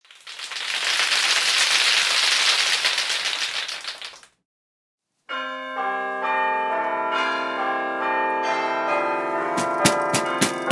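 A burst of hissing, static-like noise lasts about four seconds. After a short silence, a multi-note doorbell chime rings out, its notes overlapping and ringing on. Near the end comes a quick run of sharp knocks on the front door.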